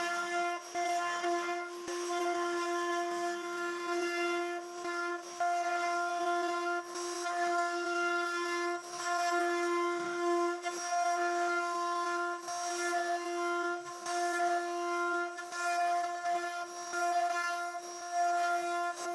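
CNC router spindle running with a steady, unchanging whine, the cutter working through wood and adding rough cutting noise that swells and fades every second or so.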